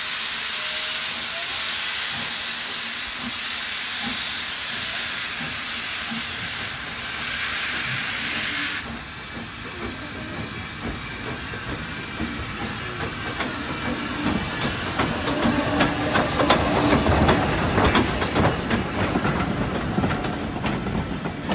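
Steam locomotive hissing steam as it approaches; the hiss cuts off suddenly about nine seconds in. It is followed by train wheels clicking over the rail joints as the engine and its carriages pass, loudest about two-thirds of the way through.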